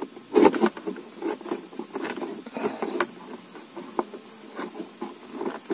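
Plastic scraping and clicking of a Baseus USB car charger being pushed into and seated in a car's cigarette-lighter socket, with a few sharp clicks about 3 and 4 seconds in.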